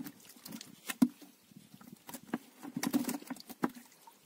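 Irregular small splashes and slaps of hands grabbing at fish in shallow muddy water inside a net, with a few sharper splashes among them.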